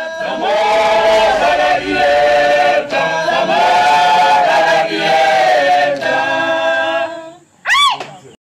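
Closing music: a choir singing held chords, fading out about seven and a half seconds in, followed by a brief sound that rises and then falls in pitch.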